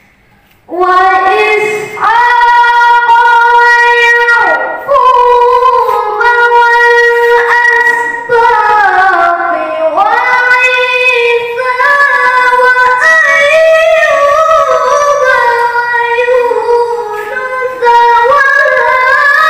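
A boy reciting the Qur'an in the melodic tilawah style into a handheld microphone: long, held, ornamented phrases in a high child's voice that slide between notes, with brief breaths between phrases. It starts about a second in.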